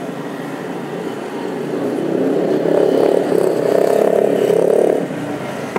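City traffic hum with one motor vehicle's engine coming up close, swelling to its loudest over about three seconds and falling away about five seconds in.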